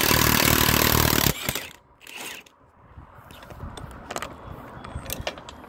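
Milwaukee Fuel cordless impact wrench hammering on a 1-1/4 in saddle bolt for about a second and a half, then stopping, as the bolt is loosened to release the undecking saddle. Light metal clicks and rattles follow.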